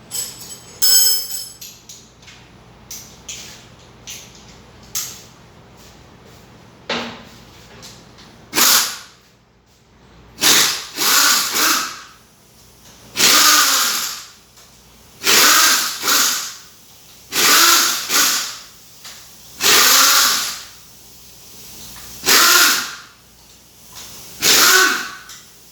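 A handheld power tool, such as a drill or power ratchet, runs in about eight short bursts of about a second each, spaced roughly two seconds apart, spinning out bolts on a 4.3 L V6's top end during rocker-arm removal. A few sharp metal clicks come first.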